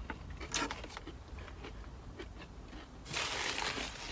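Paper food wrapper being handled, with small crunches and clicks, then a louder burst of crinkling about three seconds in.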